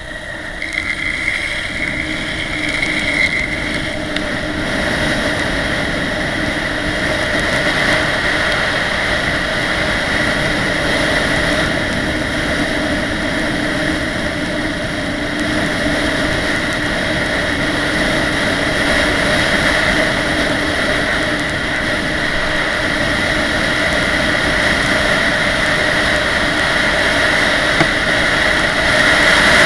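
Longboard wheels rolling fast over asphalt on a downhill run, a steady roar with wind rushing over the microphone. It swells about a second in as speed builds.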